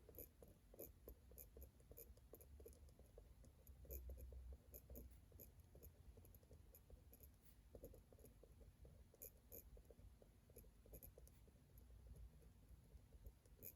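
Faint writing on paper: quick, irregular scratching strokes in runs, with a short pause midway.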